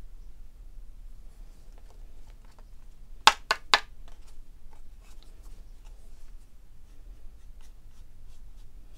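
Soft scratching of a paintbrush sweeping excess embossing powder off cardstock. A little over three seconds in come three sharp taps in quick succession as the card is turned over and tapped to knock the loose powder off.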